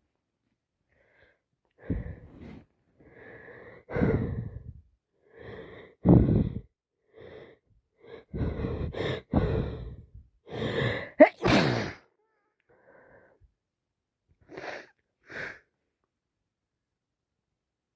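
A woman with a heavy cold drawing a string of breaths that build up to a loud sneeze about eleven seconds in, followed by two short breaths a few seconds later.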